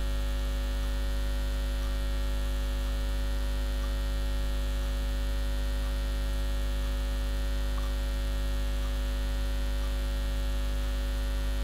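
Steady low electrical mains hum with many evenly spaced overtones, picked up on the recording's audio line.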